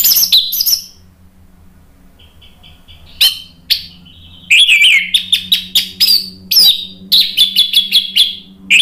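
Orange-headed thrush (anis merah) singing: loud, varied phrases of sharp whistles, chirps and quick sweeping notes. A short burst at the start, a pause, a couple of single notes, then a fast, dense run of song from about halfway in.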